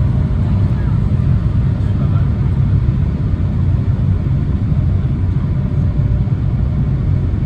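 Steady low rumble of cabin noise inside an Embraer 175 airliner on approach, from airflow and its two wing-mounted CF34 turbofans, with a faint steady whine above it.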